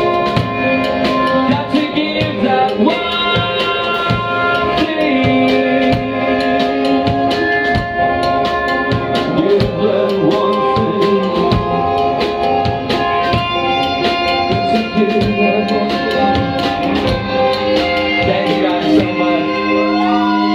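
Live rock band playing: a man singing into a microphone over a drum kit and electric guitar, with a steady beat of drum hits.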